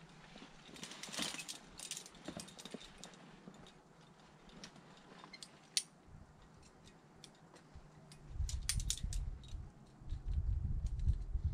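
Climbing hardware, carabiners and quickdraws, clinking and scraping in light, irregular clicks. From about eight seconds in, a low wind rumble on the microphone takes over.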